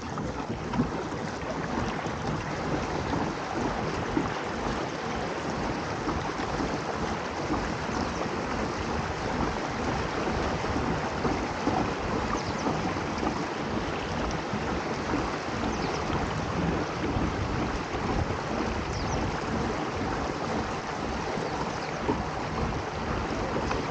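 Steady wash of water along the hull of a moving fishing kayak, with wind buffeting the microphone.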